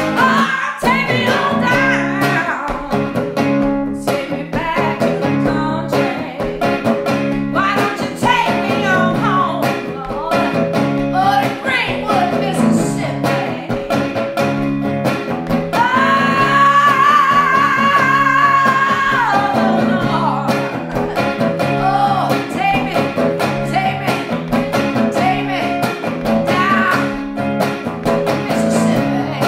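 A woman sings a blues song full-voiced over her own hollow-body electric guitar, which plays a repeating rhythmic riff in the low strings. Midway through she holds one long sung note for about three seconds.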